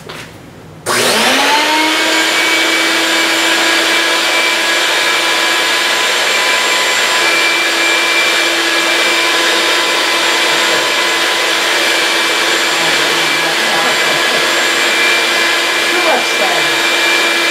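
A vacuum cleaner motor switched on to power a vacuum-forming box, drawing the heated plastic sheet down over the canopy plug. It spins up within a second to a steady, loud whine with a rushing hiss, then winds down near the end as it is switched off.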